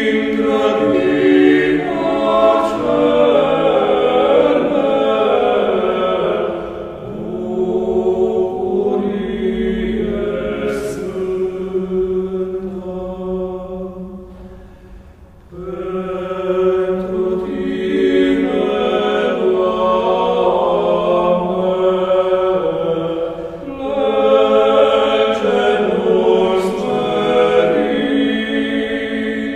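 Orthodox church choir chanting slowly in several voices as a background music track. The singing dies away about halfway through, then a new phrase begins.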